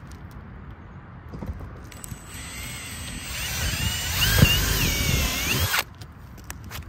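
Milwaukee M18 cordless drill boring a pilot hole through asphalt shingles into the roof deck to probe for a rafter. The motor starts about two seconds in and runs for roughly three and a half seconds with a whine that wavers in pitch under load, then stops abruptly.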